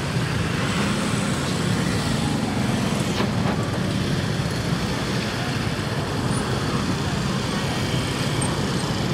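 Motor scooters riding slowly past, engines running, over the steady noise of a busy street market with people's voices.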